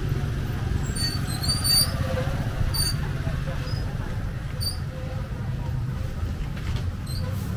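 Busy outdoor market ambience: a steady low engine rumble under indistinct voices, with short high chirps or squeaks now and then.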